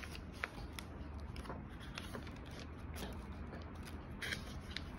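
Hardback book pages being turned and handled: soft paper rustles with scattered small clicks, over a low steady hum.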